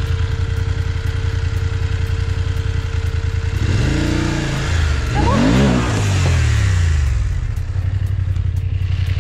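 BMW F 750 GS parallel-twin engine idling. It revs up from about four seconds in as the bike pulls away over loose rocks, with a rush of noise, then settles back to steady running.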